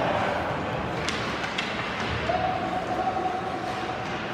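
Ice hockey game in a rink, heard from the stands: steady arena noise with two sharp clacks about a second in and half a second apart, then a steady held tone from about halfway through.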